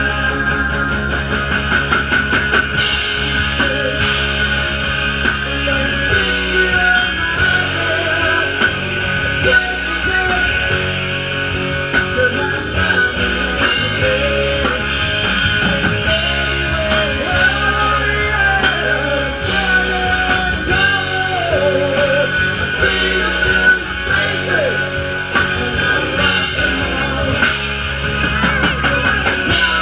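Live rock band playing: electric guitars, bass guitar and a drum kit keeping a steady beat, with a man singing over them.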